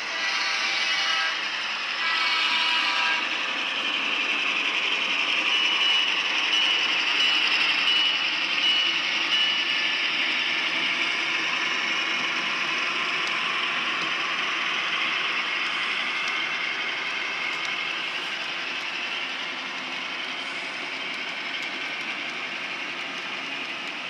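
HO-scale model freight train running past behind two Walthers Proto GP9 locomotives: the steady whir and rattle of the motors and of the tank cars' wheels on the track. The sound swells as the locomotives pass and fades slowly as the cars roll by. Two short pitched sounds come near the start.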